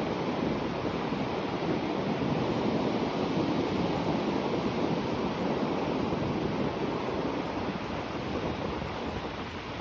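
Sea waves breaking and washing on the shore as a steady rushing surf, swelling slightly around the middle and easing off towards the end, with some wind noise on the microphone.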